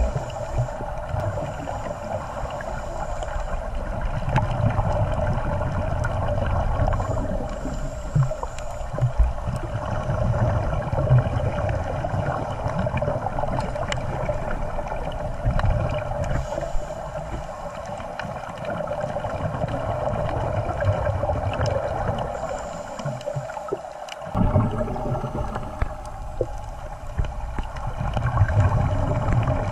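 Underwater sound picked up by a submerged camera: a steady muffled hum and low rumble, with scattered faint clicks and crackles.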